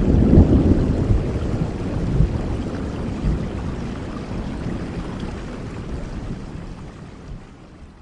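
Rain falling, with a deep rumble underneath, fading out steadily.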